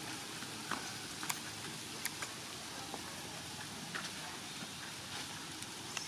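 Steady outdoor background hiss with a few faint, sharp clicks scattered through it.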